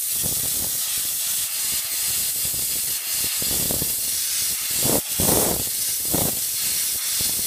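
Steam hissing hard out of the nozzle of a Vapor Chief 100 commercial steam cleaner, with uneven surges, the loudest about five seconds in. The steam adjustment valve is wide open with the boiler at 100 PSI, giving a high volume of hot, wetter steam.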